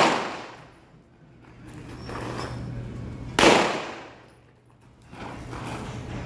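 Two single pistol shots of live fire, one right at the start and one about three and a half seconds later, each with an echo that dies away over about a second.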